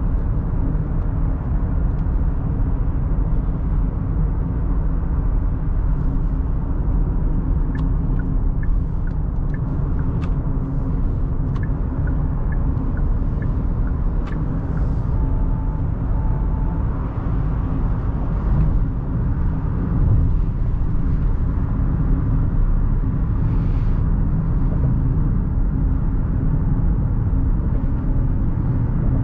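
Steady low rumble of road and tyre noise inside the cabin of a moving Genesis GV70. A few faint ticks come through in the middle, followed by two short beeps about a second apart.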